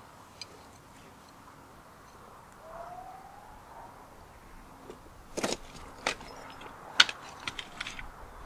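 Footsteps crunching and cracking over broken brick rubble, irregular steps starting about five seconds in. Before them, a faint hush with a faint tone rising slowly.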